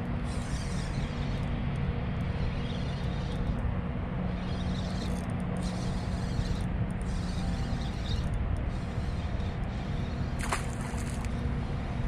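Steady low hum of a boat motor running, with one short sharp click about ten and a half seconds in.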